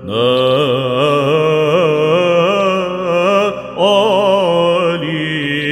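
Byzantine chant sung in Arabic: a solo voice drawing out a long, ornamented melisma on a held vowel, with a short break for a new phrase a little under four seconds in.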